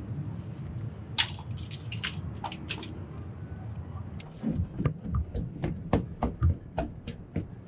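Metal hand tool clinking and knocking against a Volvo Penta marine diesel engine: one sharp clink about a second in, then a string of quick taps and clicks in the second half.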